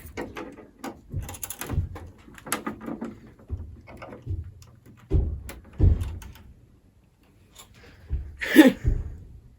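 The plastic case of an iMac G3 being pried apart with a flathead screwdriver: scattered clicks, cracks and low knocks, with a louder creak near the end.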